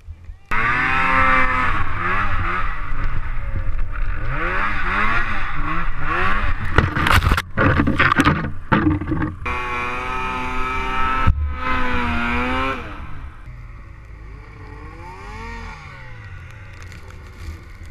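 Snowmobile engine throttled up hard about half a second in, revving up and down repeatedly as it churns through deep powder. A spell of sharp scraping and clattering comes about seven to nine seconds in as the sled pushes through snow-laden tree branches. From about thirteen seconds the engine settles to a lower, quieter run as the sled slows in the deep snow.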